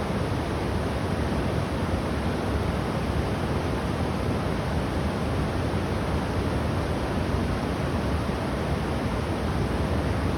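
Steady roar of rushing floodwater, an even noise that does not change, with no engine note standing out.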